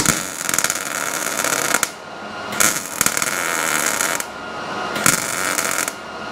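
Welder arc crackling on car-body sheet metal in four short bursts, about a second to a second and a half each, with brief pauses between them: stitch welding of a quarter-panel seam.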